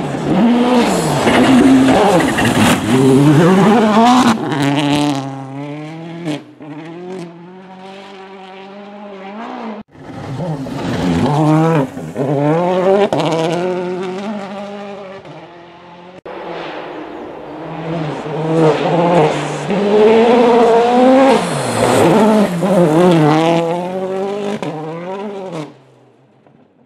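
2017 Toyota Yaris WRC rally car's 1.6-litre turbocharged four-cylinder engine revving hard through the gears as it passes at speed on gravel, the pitch climbing and dropping sharply with each gear change. It comes by three times, with sudden breaks about ten and sixteen seconds in, and the sound swells as the car nears and falls away after each pass.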